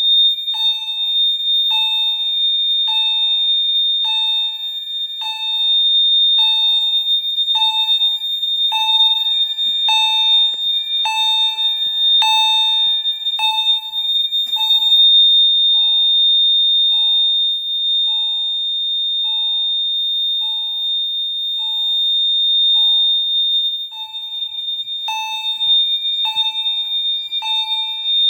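Fire alarm system in alarm, set off by magnet-testing a smoke detector. One appliance gives a continuous high-pitched tone while another pulses a lower tone about once a second. The pulses fade for a while in the middle and come back loud near the end.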